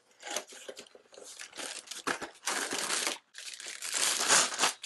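Cardboard packaging being opened, then a clear plastic bag around a laptop mount tray crinkling loudly as the tray is lifted out and handled.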